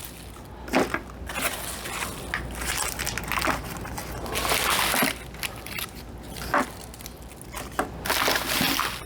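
Plastic bags crinkling and rustling as bags of frozen-solid pinkie mice are handled, with a few sharp knocks and clicks scattered through it.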